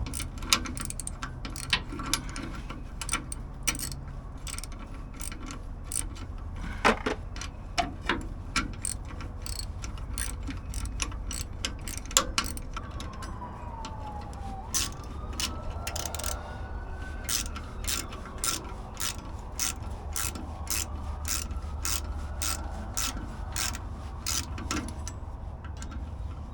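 Hand ratchet wrench clicking as bolts are tightened: scattered clicks at first, then a steady run of about two clicks a second in the second half, over a steady low hum.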